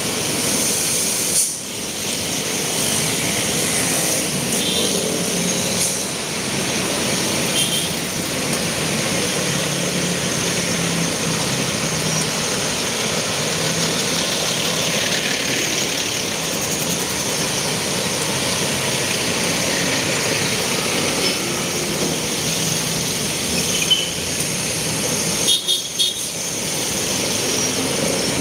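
Steady street-traffic noise heard while riding along a busy city road past buses and cars, an even rush with a few brief knocks and dips near the end.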